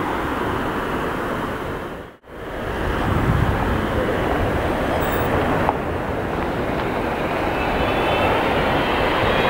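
Boeing 777-300ER's GE90 turbofans running as the airliner rolls along the runway: a steady jet rumble and hiss. It drops out for a moment about two seconds in, then comes back and grows a little louder, with a faint whine near the end.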